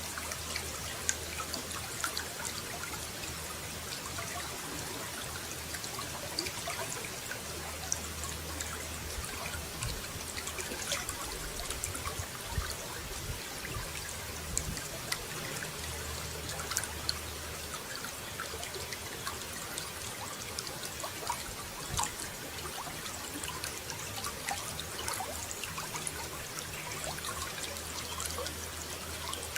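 Running water trickling and splashing steadily, with many small drops pattering through it; a low rumble underneath comes and goes every few seconds.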